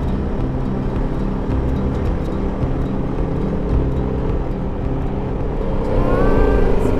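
BMW G310GS's single-cylinder engine running steadily under way, with road and wind noise; the engine note climbs near the end.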